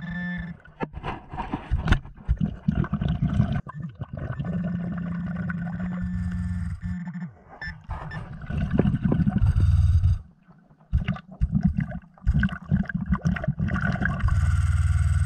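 Underwater sound picked up by a diver's camera on a lake bottom: gurgling and bubbling with a low hum that comes and goes, broken by many sharp clicks and knocks from handling. It drops out briefly about ten seconds in.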